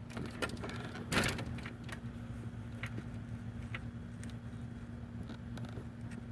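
Light handling noise: scattered small clicks and a louder knock about a second in, over a steady low electrical hum.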